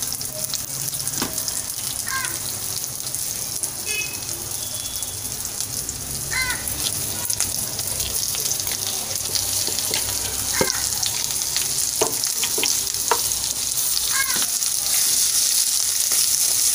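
Chopped onions sizzling in hot oil in a clay pot, stirred with a wooden spatula that knocks against the pot now and then. The sizzle grows louder near the end, and a few short high chirps come every few seconds.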